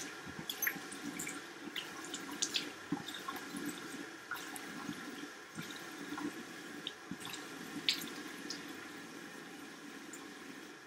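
Hot water running from a bathroom sink tap while hands scoop it and splash it onto a face, with scattered small splashes and drips throughout.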